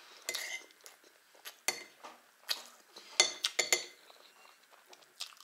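Metal teaspoon clinking and scraping against a small dish of strawberry jam as it is scooped out. The sharp taps come in a loose series, with a tight cluster of them from about three seconds in.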